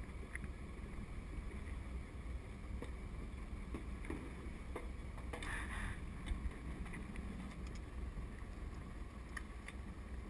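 Open-water boat ambience: a steady low rumble of wind on the microphone, with a few light clicks and a brief hiss about halfway through.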